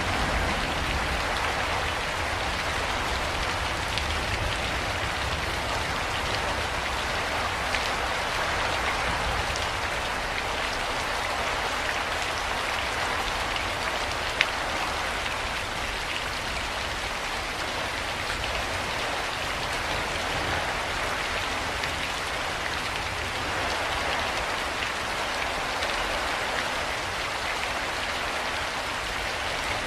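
Steady, even rain falling and pattering on a surface, with scattered drop ticks and one sharper tick about halfway through.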